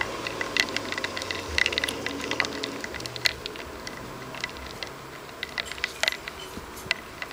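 Irregular run of small, sharp clicks and taps on a plastic cup, several a second, like typing.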